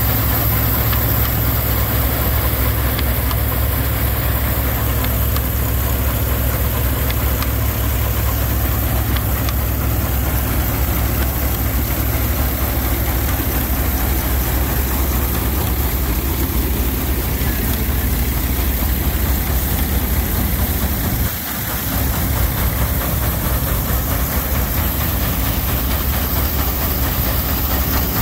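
Belt-driven threshing machine running steadily while threshing grain, with the tractor engine that powers it running at a steady speed. The level dips briefly about three-quarters of the way through.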